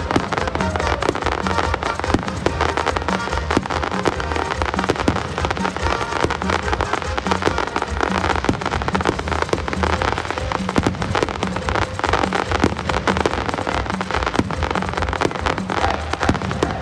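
A fireworks barrage: many shells and crackling stars going off at once, a dense, unbroken crackle with frequent sharper bangs.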